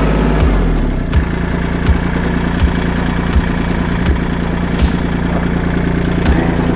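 A vehicle engine idling steadily, its sound shifting about a second in, with a short sharp click about every three-quarters of a second.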